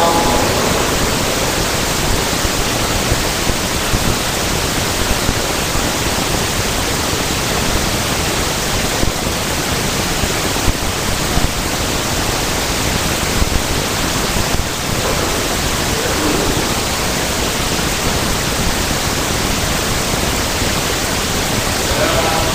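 Steady, even hiss of background noise with no speech, spread evenly from low to high pitches.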